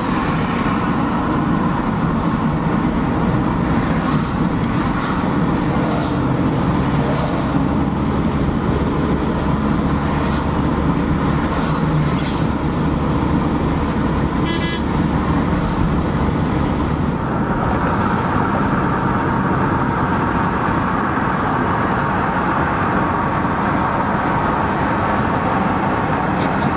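Steady engine and tyre noise inside a van's cab at dual-carriageway speed. A brief faint high tone sounds about halfway through, and the noise turns brighter and hissier about two-thirds of the way in.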